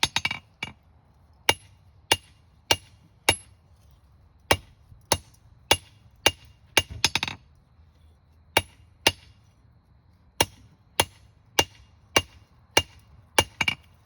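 Hammer blows on hot steel over an anvil as a blacksmith draws out a long square taper. The strikes come steadily, roughly one every half second with a couple of short pauses, and each leaves a bright metallic ring.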